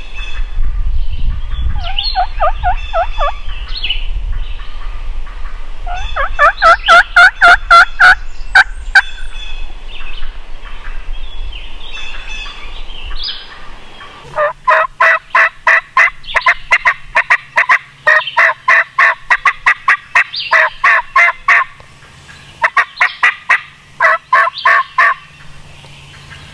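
Turkey yelping in runs of sharp, evenly repeated notes, several series with pauses between, the longest about eight seconds, loud and close. Small birds chirp faintly behind.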